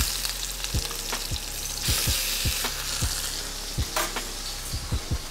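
Chicken breasts searing in hot avocado oil in a skillet, sizzling steadily with frequent small pops of spattering oil, just turned over to brown the second side.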